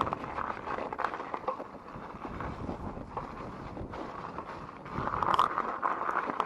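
Wind buffeting the microphone of a chest-mounted action camera during an e-bike ride, with scattered clicks and knocks; the wind gets louder about five seconds in.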